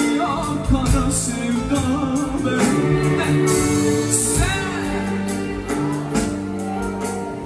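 A live band playing a Turkish pop song, with a male singer's voice over steady instrumental notes and a regular percussion beat.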